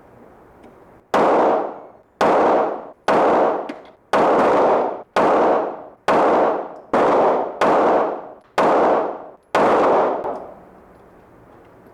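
A string of about ten gunshots fired roughly one a second, each a sharp crack followed by a ringing, echoing decay.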